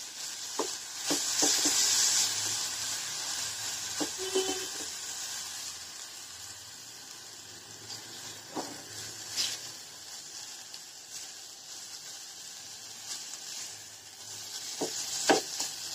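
Grated-carrot halwa sizzling in a nonstick frying pan while a spatula stirs and scrapes through it, with scattered clicks of the spatula against the pan. The halwa is thickening into a stiff mass that is getting hard to stir.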